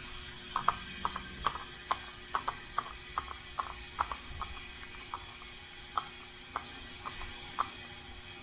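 Irregular sharp clicks, a few a second, from handling a leak-down tester, over a steady hiss of compressed air as the tester holds pressure in a cylinder of a Subaru EJ25 flat-four.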